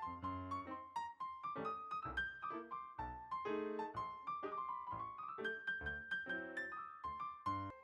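Piano music playing a quick, continuous run of notes.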